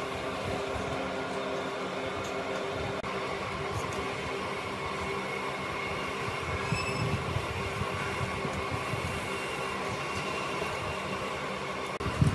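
A workshop machine running steadily, a constant whirring hum with a few fixed tones.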